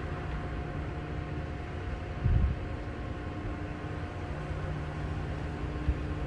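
Steady low rumble and hiss with a faint steady hum, and a brief louder thump about two seconds in.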